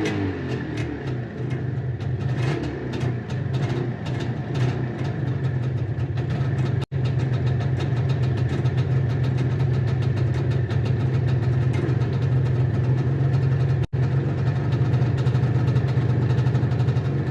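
IZh Jupiter-4 motorcycle's 350 cc two-stroke twin idling steadily as it warms up, its revs settling to idle at the start. The sound drops out twice, very briefly.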